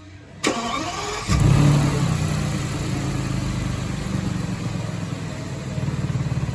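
2008 Audi A8L's 6.0-litre W12 engine being started: the starter cranks briefly, the engine catches about a second in with a short rev flare, then settles into a steady idle. Near the end the idle takes on a rhythmic pulsing from the exhaust, which leaks at the flex pipes.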